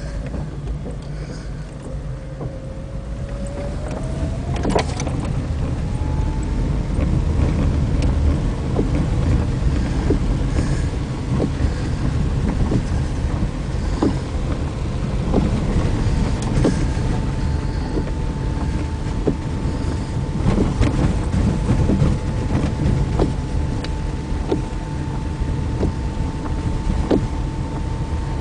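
A car driving on an unpaved dirt road: a steady low rumble with scattered knocks and clicks. A whine climbs in pitch about four to seven seconds in as the car gathers speed, then holds steady.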